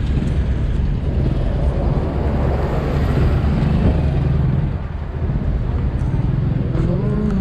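Busy roadside traffic: vehicle engines running close by in a steady low rumble, with faint voices in the background.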